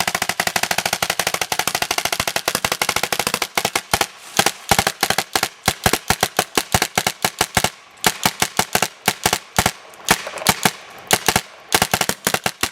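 Tippmann A5 paintball marker firing in ramping mode: a fast, unbroken stream of shots for about the first three and a half seconds, then breaking into shorter bursts and single shots with gaps as the 140-round pod is emptied.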